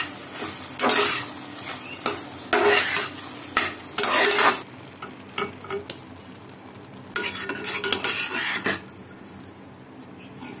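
Metal spatula stirring and scraping saucy chilli paneer in a nonstick pan, in several short bursts over a faint steady sizzle, as the fresh coriander is tossed through.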